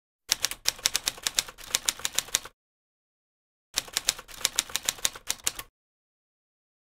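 Typewriter sound effect: two quick runs of key clacks, each about two seconds long, with a silent gap of about a second between them, keeping time with text typing onto the screen.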